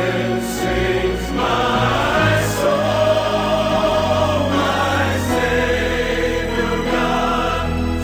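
Slow background music with long sustained choir-like voices over held low bass notes.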